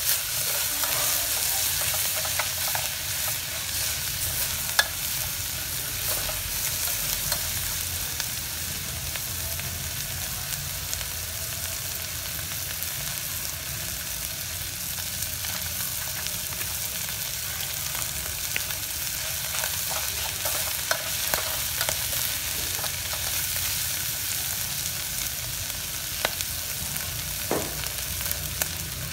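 Chopped food sizzling steadily in an aluminium pot, with a utensil stirring it in the first few seconds and a few sharp clicks scattered through.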